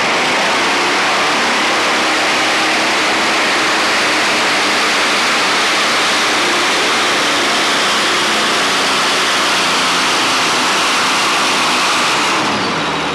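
Modified pulling tractor with Allison aircraft engines running flat out during a pull: a loud, dense engine roar that holds steady, then drops away near the end as the throttle comes off.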